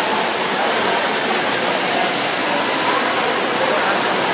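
Steady splashing of swimmers racing freestyle, mixed with the constant din of spectators' voices around an indoor pool.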